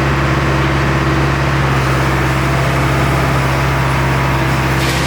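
Hyundai R85A Smart crawler excavator's diesel engine running at a steady speed, with a constant low hum.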